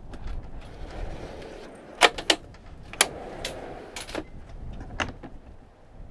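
Camp pantry being rummaged through: a string of sharp clicks and knocks from items, latches and lids being handled, the loudest about two and three seconds in, over a low steady rumble.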